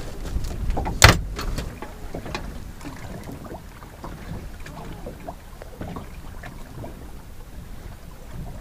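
Knocks and scuffs of a conger eel in a net sack being handled and lifted in a small boat, with one loud sharp knock about a second in and smaller knocks after. Low wind and sea noise run underneath.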